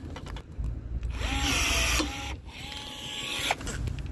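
Battery-powered rivet gun setting a 3/16-inch rivet: its motor whines in two runs of about a second each, and the second run ends in a sharp click.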